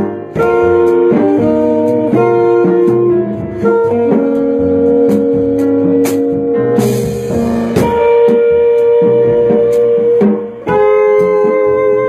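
Small jazz group of alto saxophone, guitar, piano and drums playing live: long held melody notes moving over changing chords, with a cymbal crash about seven seconds in.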